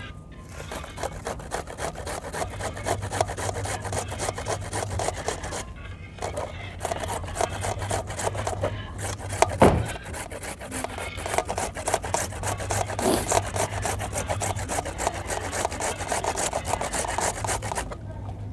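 Raw carrots being grated by hand on a flat metal grater: rapid, repeated rasping strokes, with a couple of brief pauses.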